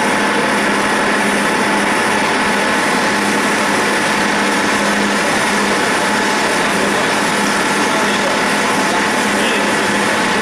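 CNC roll turning lathe taking a cut on a large metal roll: a steady cutting noise with a constant machine hum, unchanging throughout.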